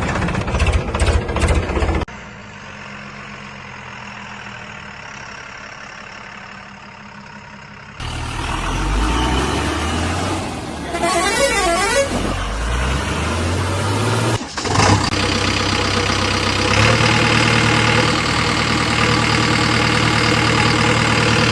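Heavy diesel engines of a backhoe loader and trucks running in several spliced clips. The sound changes abruptly at each cut: knocking, a quieter stretch, an engine revving up with rising pitch, then steady running.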